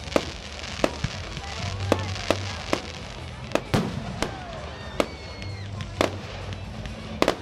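Aerial fireworks going off: about a dozen sharp bangs of bursting shells at uneven intervals.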